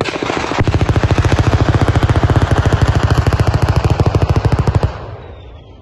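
A chain of pyrotechnic charges going off in quick succession along a runway, making a fast, even rattle of bangs. It starts suddenly and cuts off after about five seconds.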